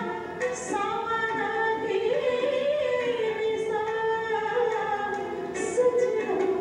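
A woman singing a ghazal, holding long notes that glide and waver between words.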